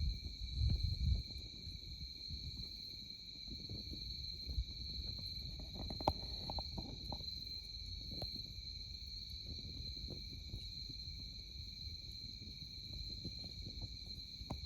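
Crickets chirring in a steady high chorus, over soft crackles and pops from a wood campfire, with a sharper pop about six seconds in.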